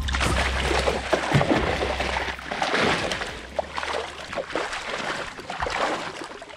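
Water splashing and sloshing alongside a kayak as a hooked Chinook salmon thrashes and is scooped into a landing net, with short irregular splashes.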